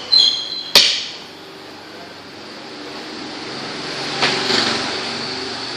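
A sharp single knock about a second in, and a softer knock with a short rattle about three seconds later, over steady room noise; brief high chirps just at the start.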